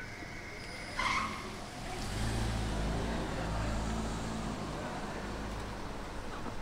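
A car drives past with its engine running low and steady for about four seconds, starting about two seconds in. Before it, about a second in, comes a brief high-pitched squeak.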